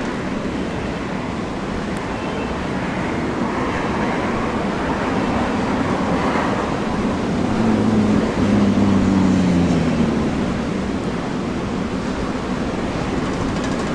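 Strong storm wind rushing over the microphone, with a low aircraft engine drone that swells about eight seconds in and drops slightly in pitch as it passes, then fades.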